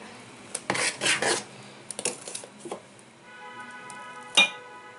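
Steel ladle scraping and knocking against stainless steel bowls while rice batter is stirred and ladled out, in scattered clinks with one sharper clank near the end.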